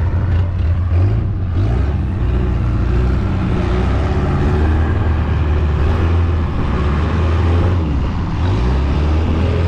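Longtail boat's engine running steadily under way, a low pitched drone whose pitch shifts briefly about a second in and again near the end.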